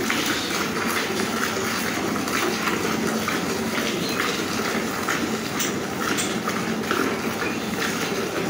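Milk squirting by hand from a cow's teats into a steel bucket that already holds frothy milk, the streams going in a steady rhythm of about two squirts a second.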